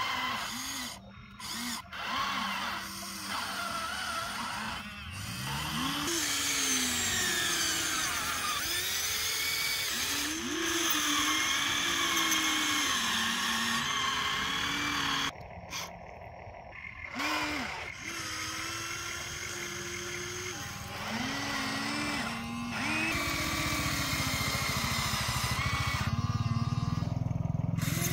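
Electric motors of a Huina radio-controlled toy excavator whining as the boom, arm and bucket move. The whine rises and falls in pitch in short runs, stopping briefly a few times.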